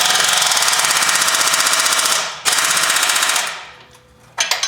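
Impact wrench hammering rapidly as it runs a bolt through the F150 front axle mount: one long burst, a brief break a little past two seconds in, then a shorter burst that dies away.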